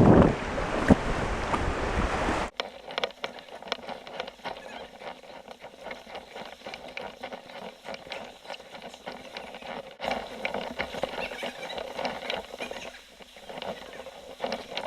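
Wind buffeting the microphone, cut off suddenly about two and a half seconds in, then a quieter, irregular patter of small splashes and drips of water.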